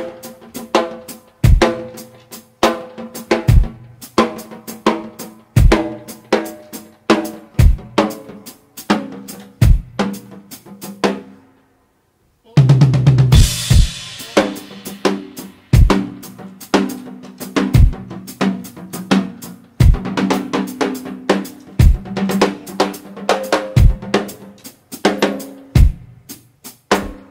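Drum solo on an acoustic drum kit: fast, busy strokes on snare and toms with heavy bass drum hits and holed effects cymbals. About eleven seconds in the playing stops dead for a second, then comes back in on a loud cymbal crash and carries on busily.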